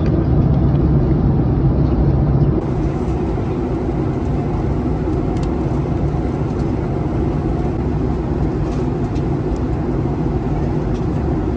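Steady cabin noise of a Boeing 757-200 airliner in cruise, engine and airflow noise heaviest in the low end, with a few faint crinkles from a foil snack wrapper being handled.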